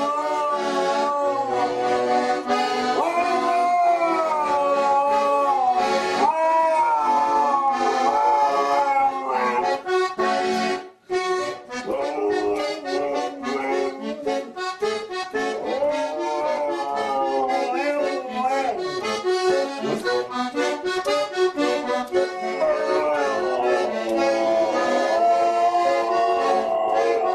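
A garmoshka (Russian button accordion) playing a tune while a dog howls along with it in long, wavering howls that glide up and down over the chords. The sound breaks off briefly about eleven seconds in, then the playing and howling carry on.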